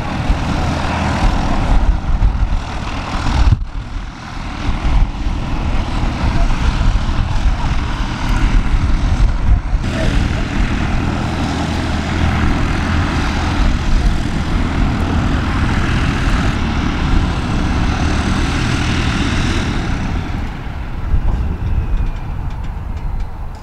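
Aircraft engines running steadily with a strong low rumble. The sound changes abruptly about four, ten and seventeen seconds in.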